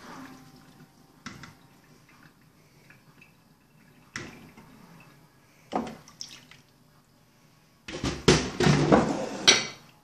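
Lime juice draining and dripping from marinated raw tuna cubes in a plastic colander, with three separate knocks of the colander. From about eight seconds in, a dense run of knocks and patters, the loudest part, as the fish cubes are tipped from the colander into a glass bowl.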